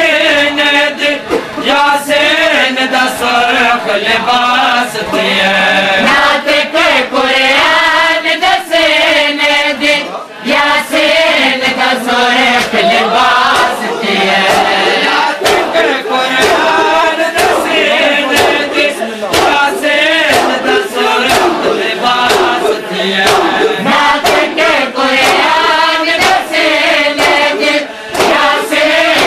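A group of men chanting a noha, a Shia lament, in unison with a lead reciter. Through the chant comes a steady beat of sharp strikes, about one a second: matam, hands beating on chests.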